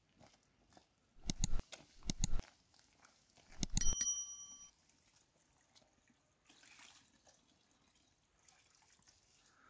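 Subscribe-button animation sound effect: two pairs of sharp mouse clicks, then a click and a short bell ding that rings out and fades within about a second.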